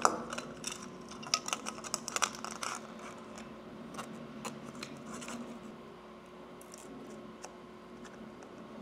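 Hard plastic parts clicking and tapping as they are handled and pressed together by hand: a quick flurry of clicks over the first few seconds, the loudest at the very start, then a few scattered clicks, over a faint steady hum.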